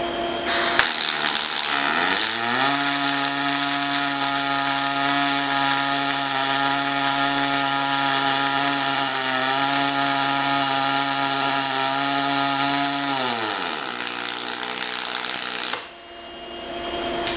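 Robot-held MIG welding torch running the arc for the third pass of a multi-pass weld. It makes a steady hiss that starts within the first second and cuts off sharply about a second and a half before the end. Under it, a pitched hum rises in pitch about two seconds in, holds steady, and slides back down about two seconds before the arc stops.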